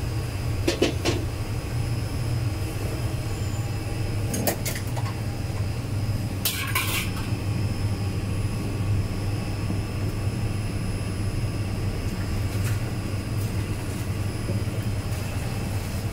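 Steady low mechanical hum, with a few light clinks of metal kitchenware: a double clink about a second in, another near four and a half seconds, and the loudest, a short rattle, about seven seconds in.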